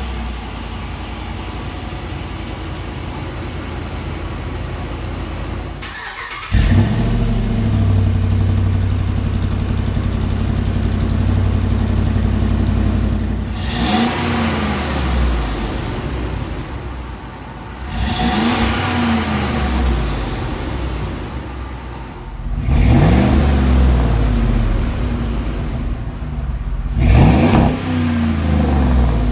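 2008 Dodge Ram's 5.7 Hemi V8 exhaust running at idle, then louder from about six seconds in, with four short revs that climb and drop back: the truck heard first through its old factory muffler and, near the end, through the new Flowmaster 40 series muffler with the factory resonator kept.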